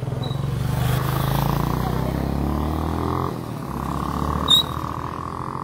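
A vehicle engine passing on the highway: a steady low drone that falls slowly in pitch over the first few seconds, then settles into a steadier hum. One short, sharp high squeak comes about four and a half seconds in.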